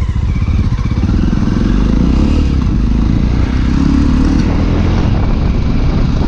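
Motorcycle engine running steadily under way, a loud continuous rumble.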